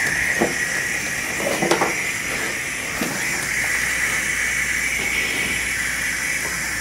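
Steady hiss of oxygen flowing at 15 liters per minute from an oxygen cylinder's regulator into a bag-valve-mask, with a few faint clicks during the first few seconds.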